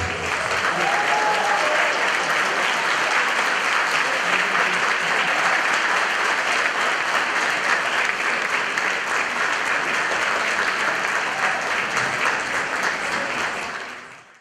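Audience applauding steadily, the dense clapping fading out near the end.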